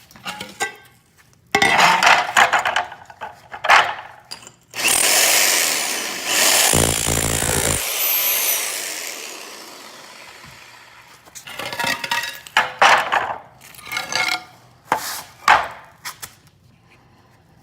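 VonHaus 10 amp electric rotary hammer in chisel (hammer) mode with a 3-inch thinset removal bit, chipping floor tile loose. It runs in short bursts, with one longer run of about five seconds in the middle.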